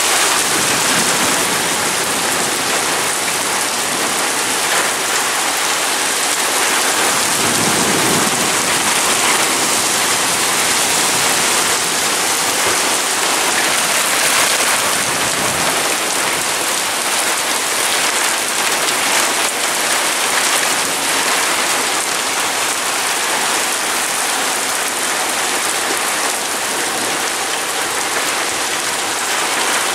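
Heavy thunderstorm downpour pouring onto pavement and a parked car, a loud, steady hiss, with brief low rumbles about eight and fifteen seconds in.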